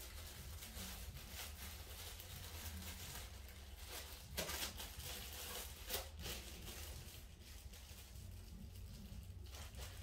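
Thin clear plastic bag crinkling and rustling in the hands as it is filled with blueberries and twisted shut. There are light scattered crackles, with two sharper ones at about four and a half and six seconds in.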